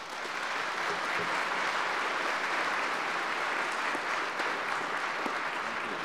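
An audience applauding in a conference hall: dense, steady clapping that starts at once and begins to die away near the end.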